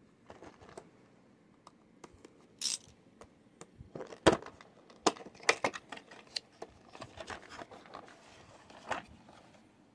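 A cardboard-and-clear-plastic toy box being opened by hand: scattered clicks, crinkles and scrapes of stiff plastic and card, with a short tearing hiss about two and a half seconds in and a sharp snap a little after four seconds.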